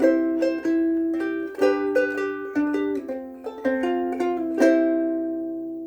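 Soprano ukulele strung with Aquila Sugar strings, finger-picked in a short melodic passage of plucked notes and chords; the last note, about four and a half seconds in, rings and fades away.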